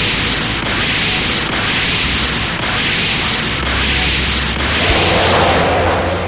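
Animated-fight sound effects: a continuous stream of booming impacts and rushing energy noise that swells and dips about twice a second as two fighters clash in mid-air, with a steady low drone underneath.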